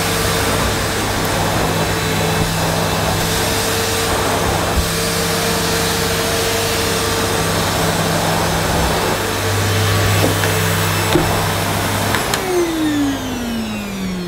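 Hitachi CV-790 Powerhouse bagless vacuum cleaner's 1100-watt motor running with a steady hum. About twelve seconds in it is switched off with a click, and the motor winds down in a falling whine.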